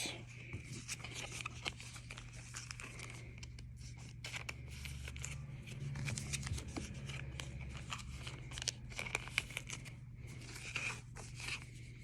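Faint tearing and crinkling of a foil trading-card pack wrapper, with scattered light clicks and rustles as the cards are handled, over a faint steady hum.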